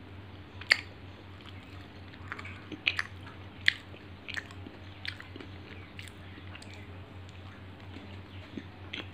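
A hard sesame-seed sweet being bitten and chewed close to the microphone: sharp crunches, the loudest about a second in and again near four seconds, then softer chewing clicks. A low steady hum runs underneath.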